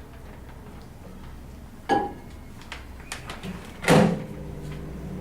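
Microwave oven being loaded: a knock with a short beep-like tone, a few clicks, then a louder bang of the door shutting, after which the microwave's steady hum starts as it begins heating.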